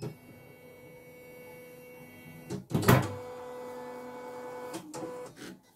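Opened-up CNY E900 computerized embroidery machine running: a steady electric motor whine made of several tones. About three seconds in there is a sharp mechanical clunk, and the whine then settles onto a steadier pitch, with a couple of smaller knocks near the end.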